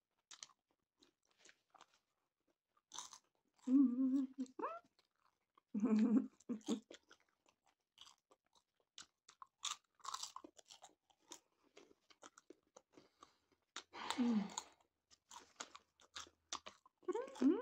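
Popcorn being chewed and crunched close to the microphone: many small irregular crackles as the kernels break. A few short vocal sounds are mixed in.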